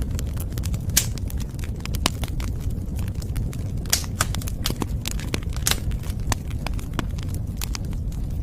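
Wood fire burning, with a steady low rumble of flame under irregular sharp crackles and pops, a few of them much louder than the rest.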